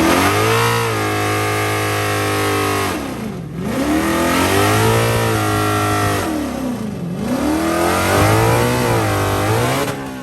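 Race car engine revving hard under acceleration; its pitch climbs, falls sharply twice and climbs again after each fall, as the car shifts up through the gears.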